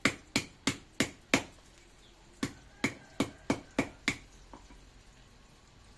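Sharp knocks of galangal root being pounded to bruise it, about three a second, in two runs of five and six strokes with a short pause between, stopping about four seconds in.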